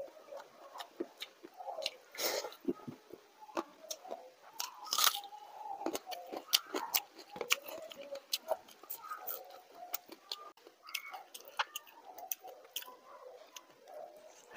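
Close-miked chewing and lip-smacking of a person eating watery rice (panta bhat) by hand: quick, irregular wet mouth clicks, with a few louder bursts about two and five seconds in.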